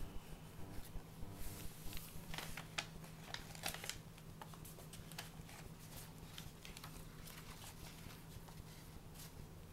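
Paper pages of a handmade journal rustling and crinkling as they are turned and pressed flat by hand, busiest in the first few seconds and then softer and sparser. A steady low hum runs underneath.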